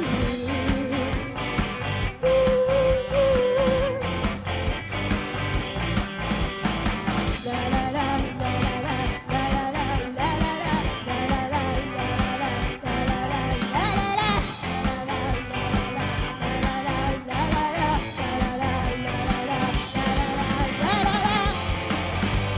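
Live rock band playing a song: drums hitting at a steady beat under electric guitars and bass, with a bending melody line carried over the top.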